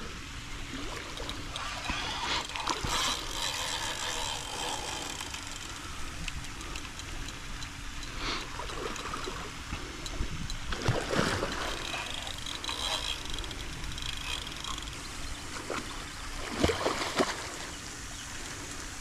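Water splashing and churning as a hooked alligator of about six feet thrashes on the line, fighting with its tail, with a few louder splashes along the way.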